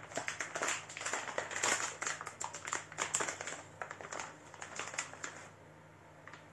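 Hands handling the contents of a motherboard box: a dense run of rustles and small clicks that stops about five and a half seconds in.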